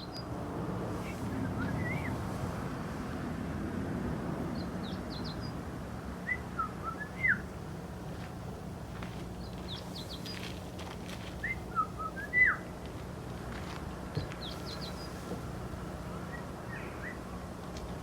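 A person whistling short phrases of upward-sliding notes about every five seconds, trading with a small bird's quick bursts of high chirps.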